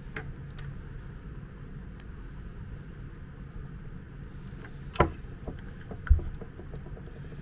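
Small handling noises of a screwdriver and a plastic electrical plug whose terminal screws are being tightened, mostly faint over a low steady rumble. A sharp click comes about five seconds in, then a dull knock about a second later as the plug is handled.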